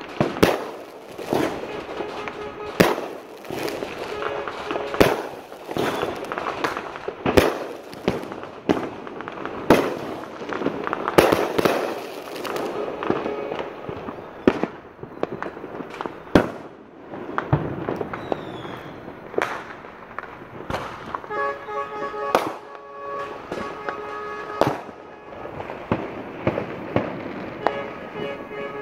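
Fireworks and firecrackers going off, a long run of sharp bangs of varying loudness coming every second or so, some close together. In the second half, steady pitched tones of music run under the bangs.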